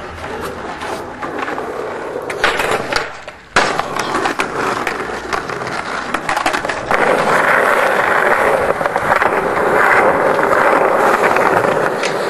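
Skateboard wheels rolling on concrete, with the sharp clacks of the board popping and landing in the first few seconds. From about seven seconds in, a louder steady rolling noise.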